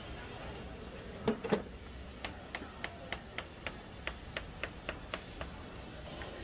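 Two knocks, then a quick, even run of light ticking taps, about four a second, lasting some three seconds.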